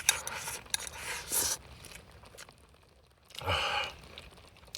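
A person eating: a few small clicks and short rustles in the first second and a half, then a loud breath out about three and a half seconds in.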